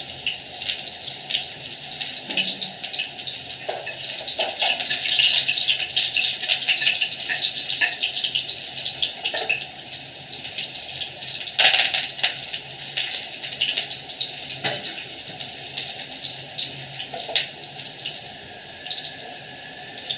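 Hot oil sizzling and spattering in a small frying pan as onion, curry leaves and dried red chilli go in for a tadka (baghar). It is at its busiest a few seconds in, has one sharp crack about eleven seconds in, and eases off near the end.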